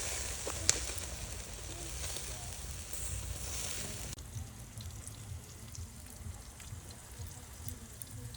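Kebab meat sizzling over a fire, a steady hiss with a click about a second in. The hiss drops off suddenly about four seconds in, leaving a fainter sizzle over a low rumble.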